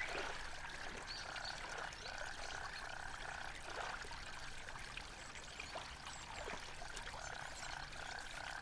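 Faint night ambience: a steady chorus of frogs over softly running, trickling water.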